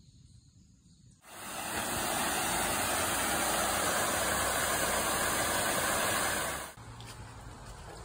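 Small waterfall pouring over rock ledges into a shallow pool: a loud, steady rush of falling water. It starts suddenly about a second in and cuts off suddenly near the end.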